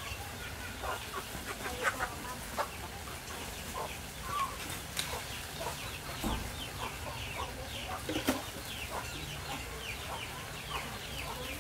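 Chickens clucking and peeping, with a quick run of short falling peeps through the second half. A few sharp metallic clinks come from the wok lid and ladle.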